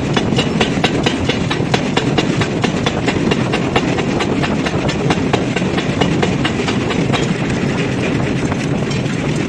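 Forging machinery running: rapid, evenly spaced knocks, about seven a second, over a steady low rumble. The knocks grow fainter after about seven seconds.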